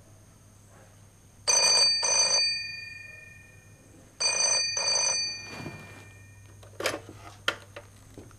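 Telephone bell ringing in two double rings, each a pair of short bursts whose tone rings on and fades after. Near the end, a few sharp clicks as the handset is picked up.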